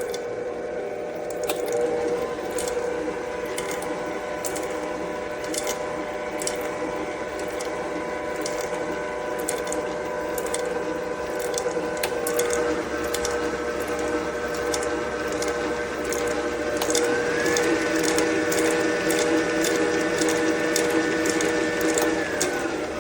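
Electric stand mixer running: a steady motor and gear whine with a rapid clicking rattle. The pitch steps up about halfway through and again a few seconds later as the speed is raised, then falls away near the end.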